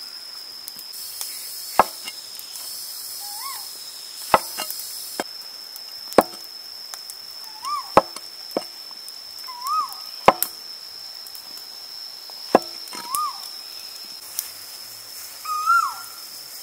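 A cleaver chopping king oyster mushrooms on a wooden cutting board: about six sharp strikes, roughly two seconds apart. Between them a bird repeats a short call that rises and falls, over a steady high tone.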